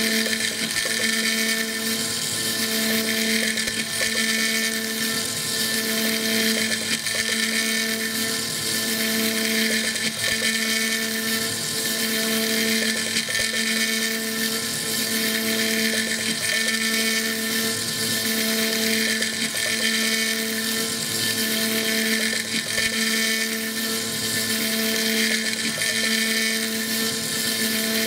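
CNC mill spindle running with a small end mill cutting a Stone Hopea burl wood ring blank as it turns on a fourth-axis rotary chuck. This is a fine finishing pass on the ring's radial sections: a steady whine over a cutting hiss that swells and eases a little.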